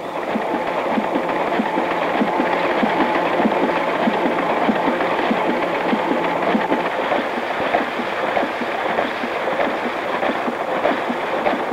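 Automatic printing press running: a steady, dense mechanical clatter of many rapid clicks.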